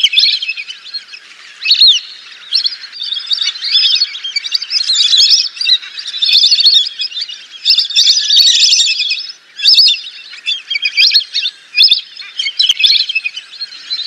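Lesser whistling ducks calling: many shrill, overlapping whistles in quick succession, as a flock chattering, with a short lull about nine and a half seconds in.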